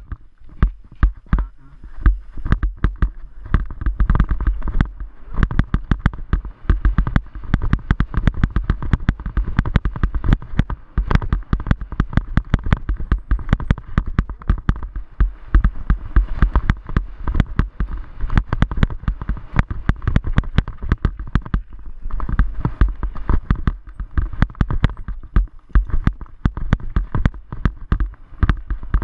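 Rapid, irregular rattling and knocking of a bicycle and a helmet-mounted GoPro camera as the bike rolls over a bumpy dirt trail, over a low rumble of wind buffeting the camera's microphone.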